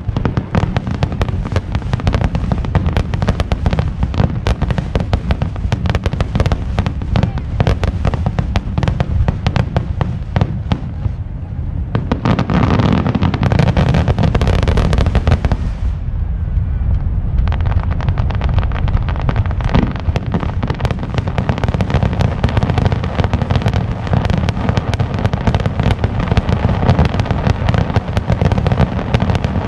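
Aerial fireworks bursting in a rapid, nearly continuous barrage, many booms and crackles overlapping. The sound grows louder and hissier for a few seconds about halfway through.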